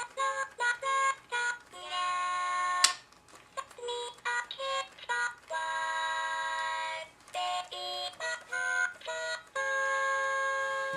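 A simple electronic melody in beeping, alarm-clock-like tones: runs of quick short notes with longer held notes about two seconds in, around six seconds in and near the end.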